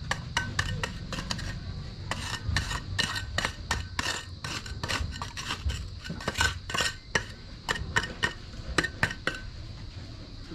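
Rapid, irregular metallic clinks and scrapes, several a second, of a metal hand tool working wet concrete.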